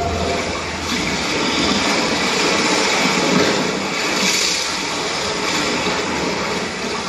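Rushing water sound effect, like surging sea waves, played over a hall's loudspeakers as a steady wash of noise.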